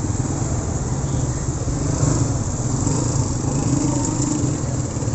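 A motor vehicle engine running steadily close by, a low even hum.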